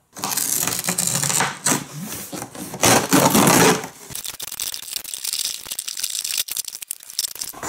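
Cardboard box of a Hot Wheels Criss Cross Crash track set being opened, with scraping and rustling, then the set's hard plastic base and track pieces clattering and clicking as they are handled in the box.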